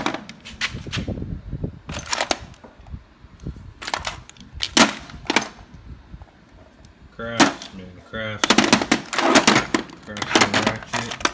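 Loose steel sockets clinking and clattering against one another as they are picked up and shuffled by hand in a toolbox drawer, in scattered clusters of sharp metallic clinks.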